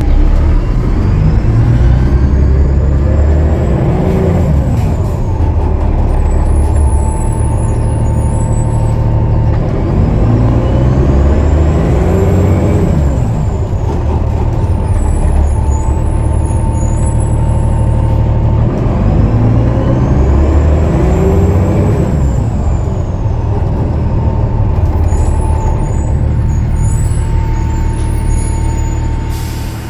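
Cummins ISL9 diesel engine of a 2013 Gillig Low Floor transit bus pulling away three times, each pull carrying a high turbo whistle that rises and falls, which the uploader puts down to a turbo leak. Between pulls a steady whine and bursts of air hiss sound as the bus slows.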